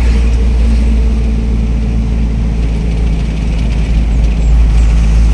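Motor vehicle running: a steady, loud low rumble with an engine hum, as from a vehicle on the move.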